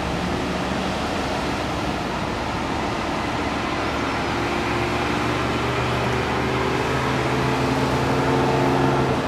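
Road traffic: a steady wash of noise, with a vehicle engine hum that builds over the second half and cuts off suddenly near the end.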